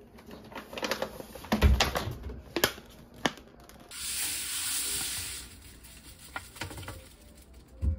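Cleaning powder poured from a paper packet into a front-loading washing machine's stainless drum: a steady hiss lasting about a second and a half. Before it comes a run of clicks and knocks as the packet is taken and handled, and there is a knock near the end.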